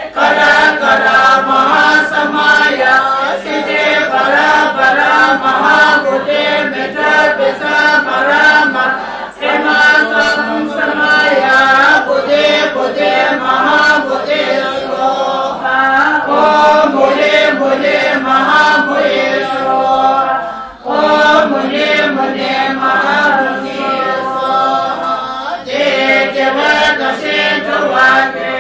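A large group of voices chanting Tibetan Buddhist prayers together in a steady, continuous recitation, led by a woman on a microphone. The chanting breaks briefly twice, about a third and about two-thirds of the way through.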